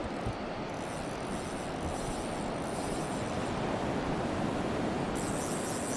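Ocean surf washing onto a beach, with wind buffeting the microphone. A thin high hiss comes in twice, about a second in and again near the end.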